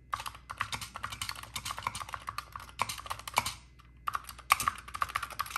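Keys of two TI-99/4A Mitsumi membrane keyboards being pressed rapidly and at random, in two runs of quick clicks with a short pause about three and a half seconds in. The new old stock keyboard and the original sound exactly the same.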